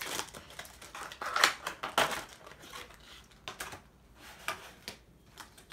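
Toy blind-pack packaging being torn open and crinkled by hand: irregular crackling and rustling with small clicks, loudest between about one and two seconds in and sparser after.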